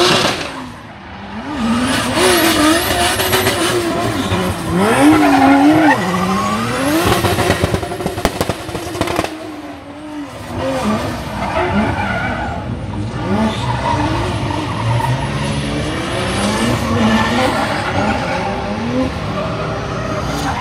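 Drift cars sliding through corners, their engines revving up and down in repeated throttle blips, with tyres squealing and skidding on the wet track. The sound dips briefly about a second in and again about halfway through.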